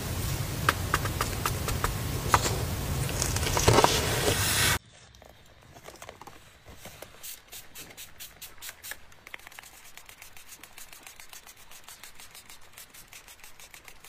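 Loud handling noise with scattered sharp clicks that cuts off abruptly about five seconds in. Then, much quieter, a quick run of short spritzes from a spray bottle misting ink onto paper journal pages.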